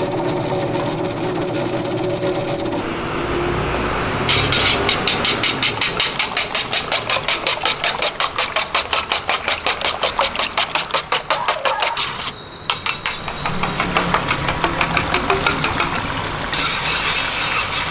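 Eggs being beaten by hand in an aluminium bowl, the utensil clicking fast and evenly against the metal, about five strokes a second. Near the end, beaten egg poured onto a hot flat pan starts to sizzle.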